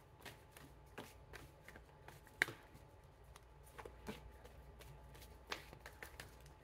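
Tarot deck being shuffled in the hands: faint, irregular soft clicks and taps of cards sliding against each other, with one sharper tap about two and a half seconds in.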